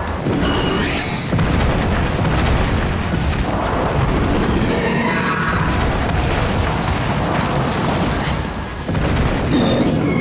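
Film sound effects of a giant monster's attack: continuous heavy rumbling with booms of explosions and crashing ground.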